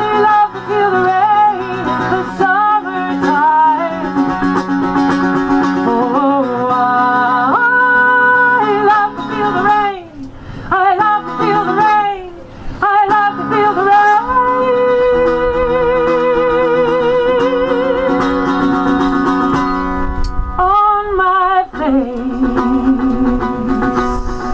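Live acoustic music: a strummed and plucked mandolin with a woman's wordless singing, held notes with vibrato, over it.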